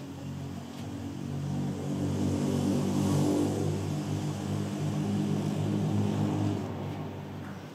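A motor engine hum that swells over a couple of seconds, holds steady, then fades near the end, like an engine passing by.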